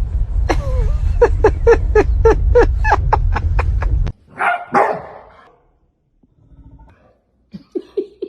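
A dog barking in a quick run, about four barks a second for some three seconds, over a steady low rumble that stops about four seconds in. Two more barks follow, and a few short, quieter barks come near the end.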